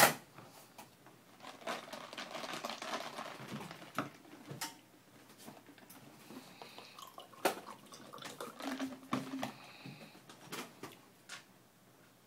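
Scattered light clicks and taps, with soft rustling in between, from a child eating rice by hand off a plastic plate at a table.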